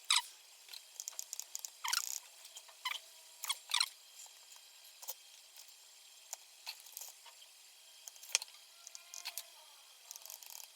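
Irregular small clicks, taps and scrapes of hand tools and parts on a circuit board as push buttons are removed and replaced. The sharpest clicks come right at the start and about two, four and eight seconds in.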